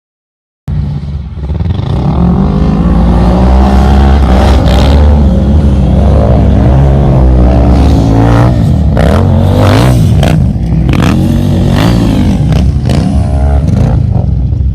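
ATV engine running hard under riding load, its pitch rising and falling with the throttle. From about eight seconds in, a series of sharp knocks and clatter sound over it. The sound cuts in abruptly after a brief silence.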